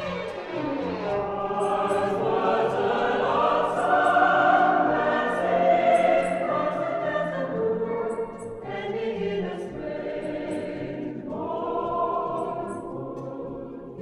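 Choir singing long held chords over an orchestra, the voices sliding downward in the first second, with new phrases entering about two-thirds of the way through.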